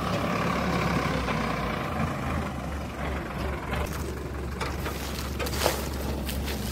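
Sonalika DI 750 tractor's diesel engine running steadily under load, hauling a heavily loaded trolley in third low gear. A sharp knock comes a little over five seconds in.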